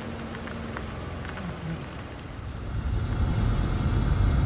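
Crickets chirping in a fast, even high pulse over a faint steady hum for about three seconds, then a cut to low engine and road rumble inside a Ford Transit 250 van as it drives off.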